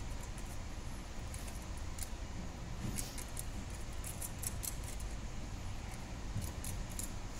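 Faint, irregular small metallic clicks and scrapes of a screwdriver tip working at the metal body of a dismantled diesel injection pump, over a steady low background rumble.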